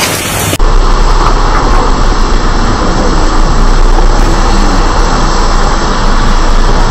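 Steady, loud rumbling roar of an erupting volcano, with a strong deep rumble under it; it starts abruptly about half a second in.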